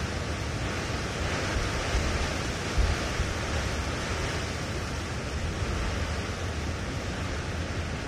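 Steady rushing noise: an even hiss with a low rumble underneath and a couple of brief low bumps a few seconds in.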